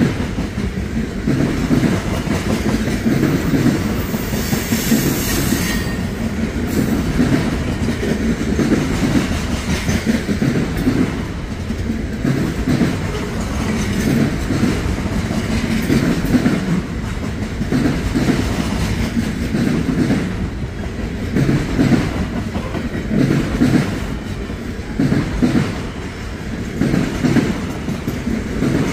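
Freight train cars rolling past, their wheels clicking over the rail joints in a continuous repeating rhythm. A brief high-pitched squeal comes about four to six seconds in.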